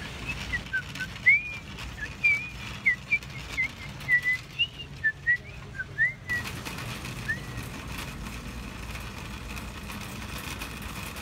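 A man whistling an idle tune of short, sliding notes, which stops a little past the middle with one last note a second later, leaving a steady background hum.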